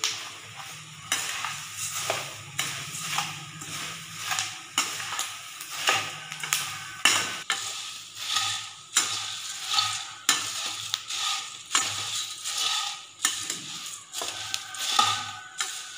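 Crisp puffed rice being stirred and tossed with a perforated steel ladle in a steel kadai: the ladle scrapes the pan in repeated, irregular strokes while the dry grains rustle and crunch, with a light sizzle from the hot oil tempering.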